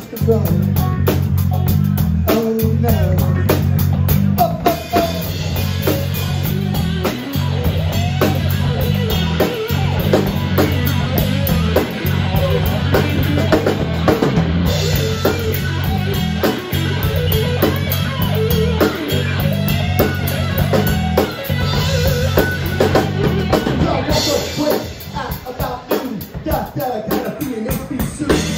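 Live rock band playing: electric guitar, bass and drum kit with steady drum hits, and a man singing into a microphone over them.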